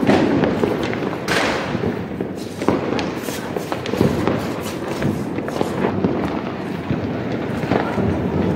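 Firecrackers going off all around: a continuous crackle of small pops and sharp bangs, with a loud bang at the start and another about a second in.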